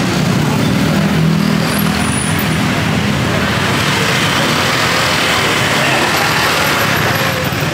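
Steady road-traffic noise from motor vehicles: an even rush, with a low engine hum in the first couple of seconds.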